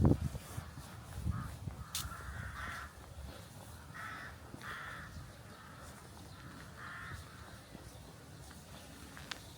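A crow cawing several times, short harsh calls spaced over the first seven seconds or so, with a low thump right at the start and a couple of sharp clicks.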